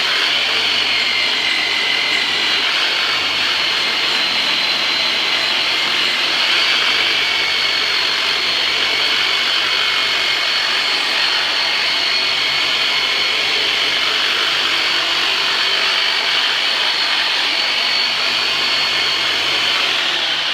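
Handheld electric vibration massager running steadily at high speed, a constant whine with a high pitched hum, cutting off near the end.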